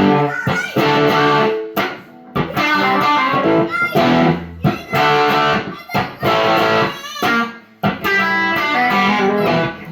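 Electric guitar played through distortion: chords and riffs, broken by brief pauses every second or two.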